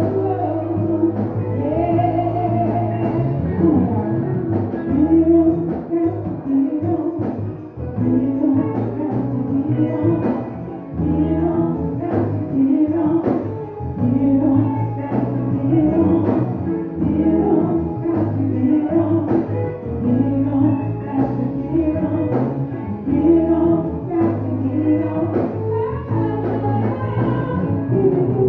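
A woman singing live into a microphone, backed by a band of keyboard, electric bass and drum kit.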